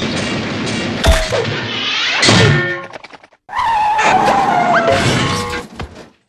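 Cartoon slapstick sound effects: a run of thuds and crashes mixed with whistle-like gliding tones, including a long falling tone in the second half, with a brief break about three seconds in.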